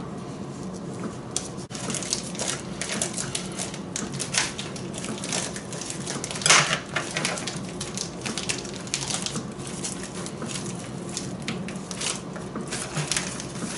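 Plastic meat packaging crinkling and crackling as it is cut open with a small knife and peeled off a rack of lamb, with one louder crackle about six and a half seconds in.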